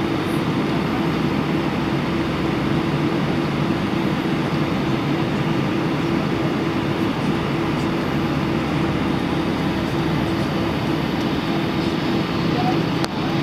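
Steady cabin noise of an Airbus A319 taxiing: a constant low engine hum under a rushing hiss, with one small click near the end.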